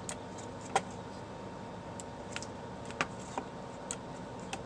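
Scattered clicks of a computer mouse and keyboard, a few quick ones with two louder clicks a little under a second in and about three seconds in, over a faint steady room hum.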